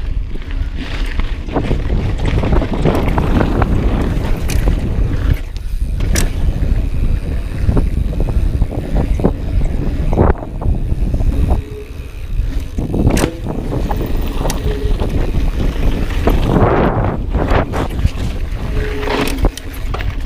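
Wind buffeting the camera microphone on a fast mountain bike descent, with the tyres rolling over a dirt trail and the bike rattling over bumps. Several sharp knocks stand out, from the bike hitting roots or bumps.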